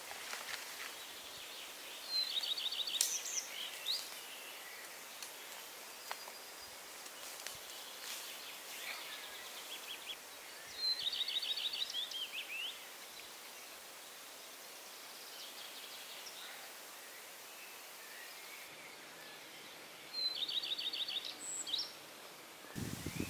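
A songbird singing the same short, rapid trilled phrase three times, about nine seconds apart, over a steady faint hiss of forest ambience.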